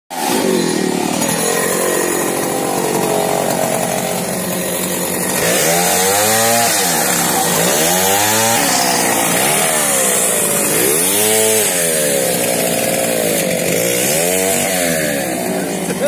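Chainsaw running and cutting into a fallen tree trunk. From about five seconds in, its pitch rises and falls over and over, roughly every one and a half seconds, as it is revved and loaded in the cut.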